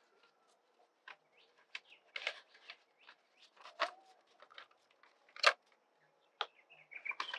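Paper strip rustling and crackling in irregular short bursts and clicks as it is handled and its ends are stuck together with a glue stick.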